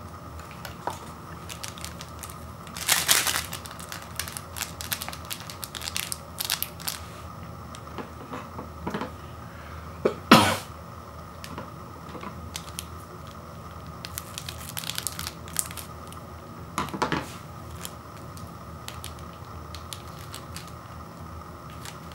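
Foil instant-noodle seasoning sachets crinkling and being torn open by hand, a run of small crackles with three louder rips, the loudest about halfway through.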